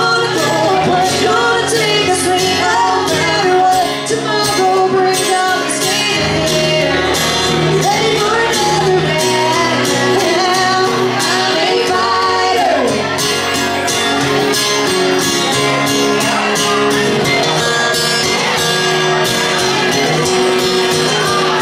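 A band playing a song with a singer and a steady drum beat, loud throughout.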